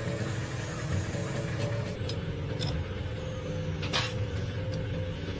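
An engine running steadily with a low drone, with a few light clicks and one sharp knock about four seconds in.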